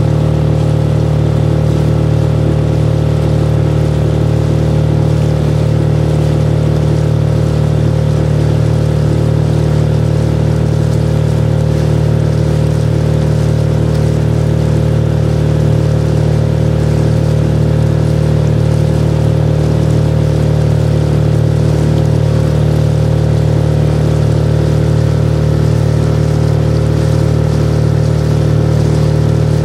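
Small boat's outboard motor running at a steady, unchanging speed.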